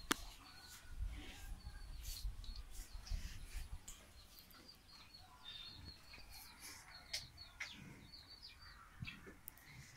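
Small birds chirping in quick runs of short high notes, with scattered clicks and knocks and a low rumble in the first few seconds.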